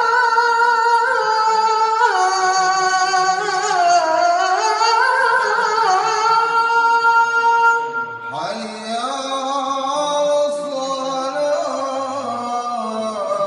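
Melodic Quran recitation (tajweed) by a single voice, holding long ornamented notes that waver and glide in pitch. About eight seconds in, a new phrase starts at a lower pitch.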